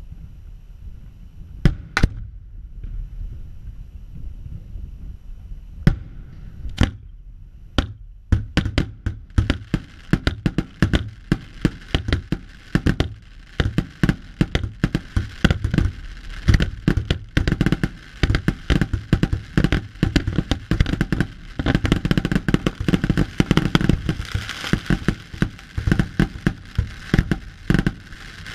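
Fireworks display: a few single aerial shell bursts, about two, six and seven seconds in, then a dense, rapid barrage of bangs from about eight seconds in.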